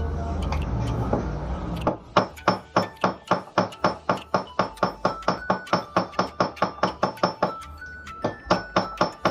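A hammer tapping metal in a fast, even rhythm of about four strikes a second, each strike ringing, with a short pause near the end. It starts about two seconds in, after a steady, noisy hum.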